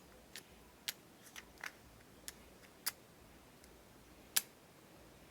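Faint, sharp clicks and ticks, about ten of them at irregular intervals, with one louder click near the end.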